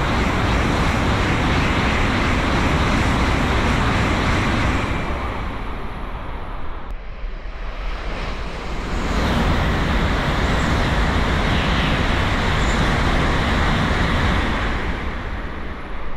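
N700-series Tokaido Shinkansen trains passing straight through the station at high speed: a loud rush of air and rolling noise from the first train, easing off after about five seconds. A second train then passes and builds to an equally loud rush, fading near the end.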